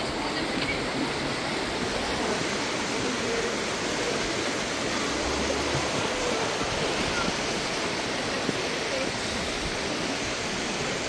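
A river rushing steadily over rocks: an even, unbroken wash of water noise.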